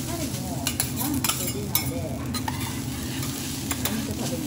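Two metal spatulas scraping and chopping egg fried rice on a hot steel teppan griddle, with the rice sizzling and a handful of sharp clinks of spatula on steel.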